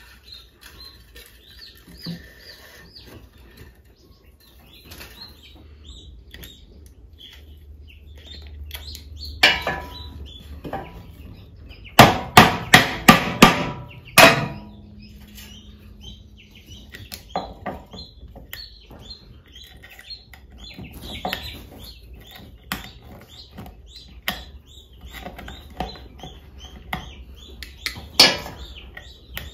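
Hammer striking a wooden beehive frame: one sharp blow about ten seconds in, a quick run of about six blows a couple of seconds later, and one more near the end. Light clicks and scrapes come in between as thin stainless steel wire is threaded through the frame.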